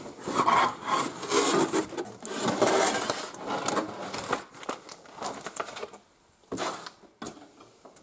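Cardboard packaging being handled: box flaps and inner cardboard rubbing and scraping as the box is opened and its contents slid out, busy for the first half, then a few shorter scrapes and knocks.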